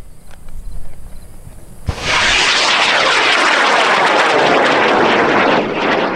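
High-power rocket motor firing at lift-off: a sudden loud onset about two seconds in, then a rough, crackling rush of exhaust noise that eases off near the end as the rocket climbs away.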